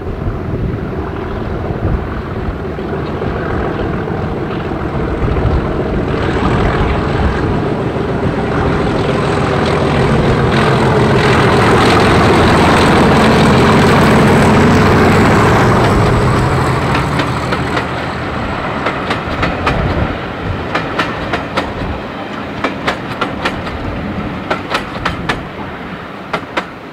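Class 37 diesel locomotive with an English Electric V12 engine approaching and passing, its engine growing loud to a peak about halfway through with a thin high whine above it. The coaches follow with the regular clickety-clack of wheels over rail joints, fading near the end.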